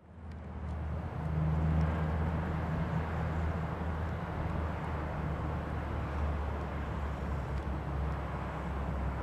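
Diesel passenger train's engine running with a steady low drone, coming up over the first second and then holding even.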